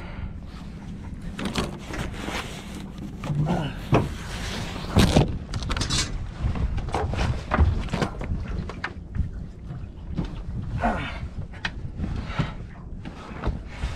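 Irregular knocks, bumps and scrapes of gear being handled aboard a small fishing boat, over a low steady rumble.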